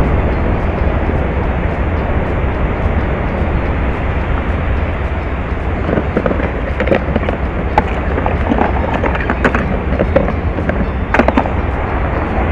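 Wind rumbling steadily on the microphone. From about halfway, plastic clicks and knocks as a fishing cooler box and its plastic trays are handled, with a sharper clatter near the end as the lid is shut.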